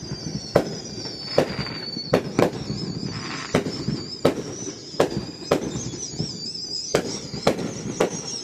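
Fireworks going off: about a dozen sharp bangs at irregular intervals, roughly one every half second to a second, over a thin, high, wavering whistle.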